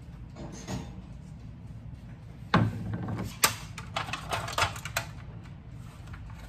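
A ceramic bowl set down on a plastic cutting board with one knock about two and a half seconds in, followed by a run of clicks and crackles from a clear plastic egg carton being opened and eggs being taken out.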